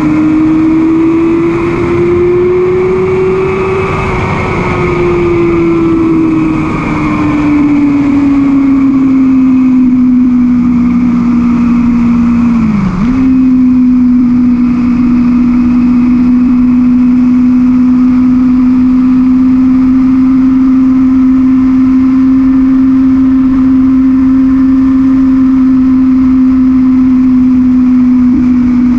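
Sport motorcycle engine running on the move, with wind rushing past. The engine note rises for the first few seconds, then falls slowly as the bike eases off. About 13 seconds in the pitch dips sharply and recovers, and the engine then holds a steady cruising note.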